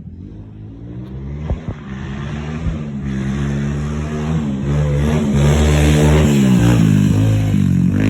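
SSR 189cc pit bike's single-cylinder four-stroke engine being ridden, its revs rising and falling repeatedly and the sound getting steadily louder. There are a few sharp knocks in the first three seconds.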